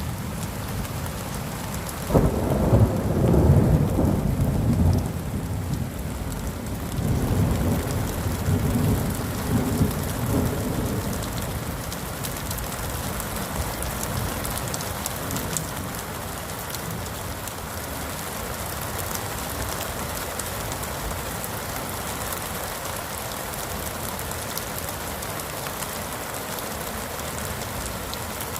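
Thunderstorm: heavy rain falling steadily, with a sudden crack of thunder about two seconds in that rumbles on for a few seconds, and a second, softer roll of thunder a few seconds later, then rain alone.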